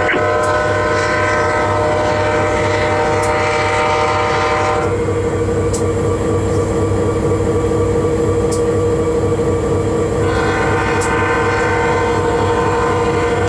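Diesel locomotive air horn heard from inside the cab, sounding a chord in two long blasts: the first ends about five seconds in, and the second starts about ten seconds in and runs to the end. The locomotive's steady running drone goes on underneath.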